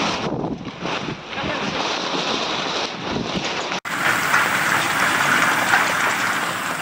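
Storm of heavy rain and hail with gusting wind buffeting the microphone. About four seconds in it cuts to a steady, dense hiss of heavy rain and hail falling on corrugated metal roofing.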